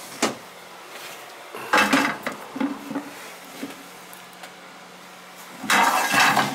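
Metal rattling and clattering as a black metal mesh holder is handled: a click at the start, a clatter about two seconds in, a few light knocks, then a longer scraping rattle near the end.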